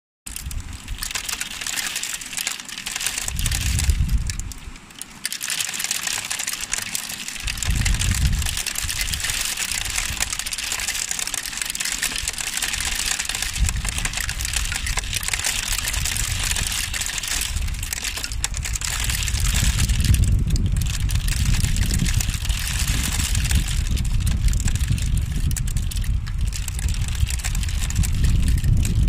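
Hail falling hard: a dense crackle of countless small ice pellets striking a wet, flat surface. Low rumbling surges come and go over it, heaviest in the second half.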